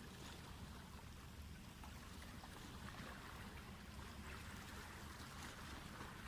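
Water lapping and trickling at a canal's edge, faint and steady, over a constant low rumble.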